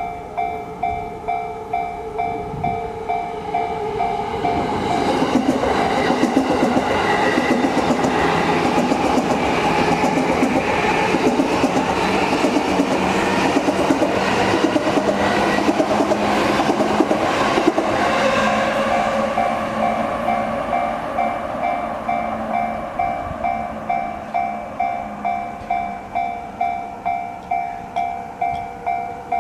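Level-crossing warning bell dinging steadily, a little under twice a second, as an E235-series electric train passes from about five seconds in. The wheels clatter over the rails and the train's noise largely drowns out the bell until it fades at about eighteen seconds. The bell keeps ringing after the train has gone.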